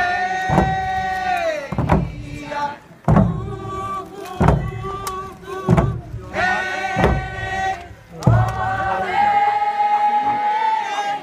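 Haida dancers singing a chant in unison with long held notes, over slow, steady frame-drum beats about every second and a quarter. A final long note is held for over two seconds near the end.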